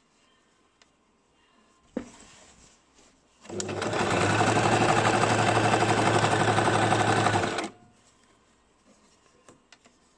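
Basic electric sewing machine stitching in one steady run of about four seconds, then stopping abruptly. A single sharp click comes a little before it starts.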